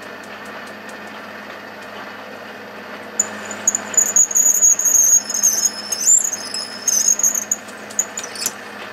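Lathe running with a 31/64 in twist drill feeding into the offset crank pin hole of a wheel, opening it out ahead of reaming. From about three seconds in, the drill squeals loudly in high, shrill bursts as it cuts, with a couple of short squeaks near the end.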